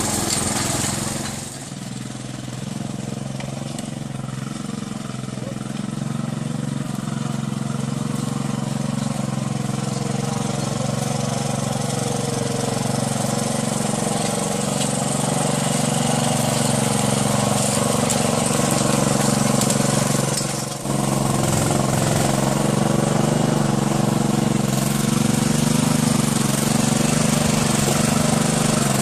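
Small engine running steadily at a constant speed, the power unit for the hydraulic crane on a horse-drawn forest wagon. It grows louder over the first twenty seconds as the wagon comes closer, and drops briefly about twenty seconds in.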